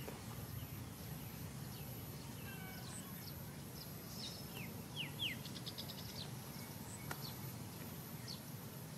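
Birds chirping in the background: a few short falling chirps and a quick trill near the middle, over a steady low outdoor rumble.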